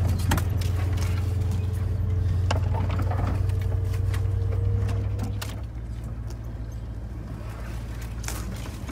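Toyota LandCruiser 200 series crawling down a narrow overgrown bush track, heard from inside the cabin: a steady low engine and drivetrain rumble with branches scratching and snapping against the bodywork in scattered sharp clicks. The rumble drops in level a little past halfway.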